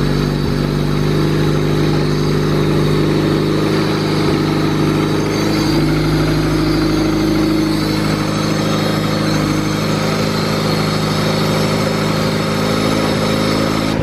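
Turbocharged Honda Civic wagon engine idling steadily on its first run after being rebuilt and reinstalled, run without coolant; the turbo is not spinning at idle.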